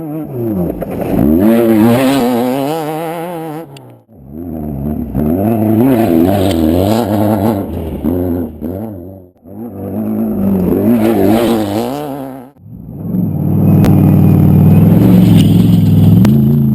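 Off-road race vehicles passing close by one after another, about four in turn, each engine swelling up and fading away as it goes by. Engine pitch wavers rapidly up and down as the throttle works over rough ground. The last pass, starting about two-thirds of the way in, is the loudest and longest.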